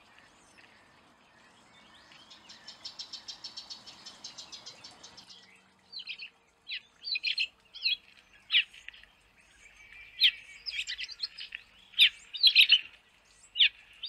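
Amethyst sunbirds chirping: a rapid high trill of about nine notes a second in the first few seconds, then sharp, high, irregular chirps that grow louder and denser toward the end.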